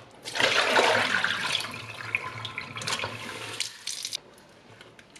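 Tap water running into a plastic basin of raw beef pieces and splashing. It is loudest in the first second, then tails off and is shut off about four seconds in.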